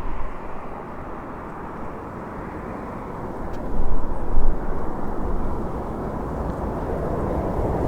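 Jet airliner engines rumbling steadily as the aircraft passes, briefly louder about four seconds in.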